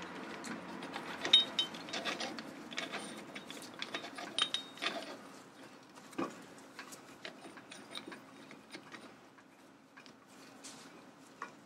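Metal clicks, clinks and scrapes of a screw-type brake piston wind-back tool being handled and fitted into a car's front brake caliper, its threaded steel parts knocking together. The loudest clinks ring briefly and come in the first half; the handling gets quieter after that.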